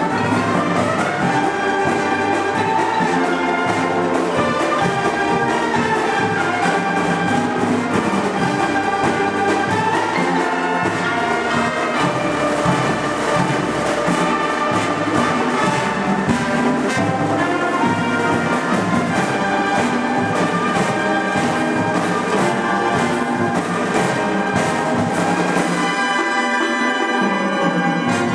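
Marching band playing loudly, with trumpets and trombones carrying the tune over steady drum strokes. Near the end the low brass drops out for a moment while the higher parts play on.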